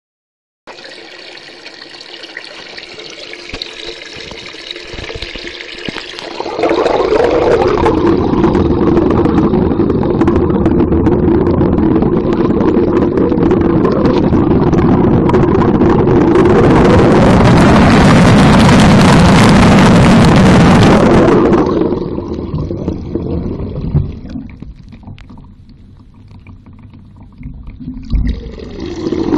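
Water pouring into a sink, heard through a phone held in and under the water: a continuous rushing with a steady low hum. It grows louder after about six seconds, is loudest and brightest around the middle, then falls away before rising again near the end.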